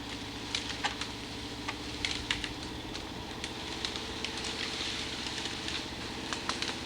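Jeep Cherokee engine running steadily under load as it pulls a log on a cable through a snatch block, with scattered sharp crackles and snaps as the log drags through brush.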